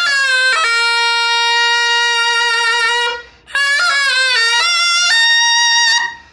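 Taepyeongso, the Korean double-reed shawm, played solo: a melody with sliding, bent note changes and a long held note. The playing breaks off briefly for breath about three seconds in and again near the end.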